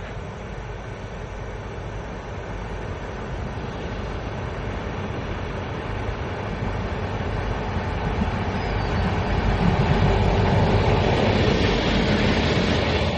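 Train drawing near on the line, its rumble growing steadily louder over about ten seconds.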